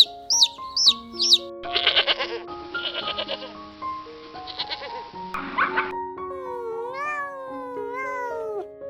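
Sheep bleating over light background music, a rough wavering bleat followed by a higher call that rises and falls in pitch. A chick's quick high peeps trail off in the first second or so.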